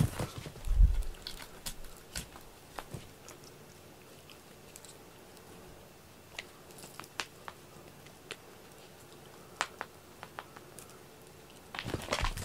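Cats playing with a cat teaser wand on a rug: a heavy thump about a second in as a cat brushes past close by, then scattered light clicks and rustles from the teaser and paws, and a burst of rustling near the end.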